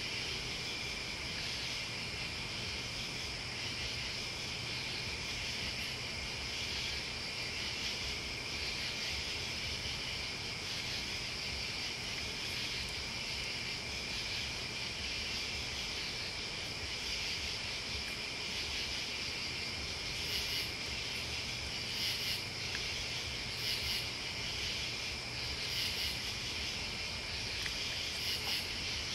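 Crickets and other night insects calling in a steady, continuous chorus. From about two-thirds of the way through, a higher-pitched insect adds short pulses roughly every two seconds.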